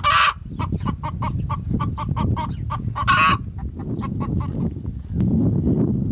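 Farmyard fowl calling: a quick run of short clucks, about four or five a second, with two louder drawn-out calls, one at the start and one about three seconds in. A low rumble runs underneath and grows louder near the end after the calls stop.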